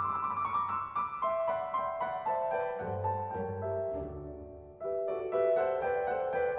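Background piano music: a gentle melody over bass notes. It dies away briefly near five seconds in, then picks up again with the next phrase.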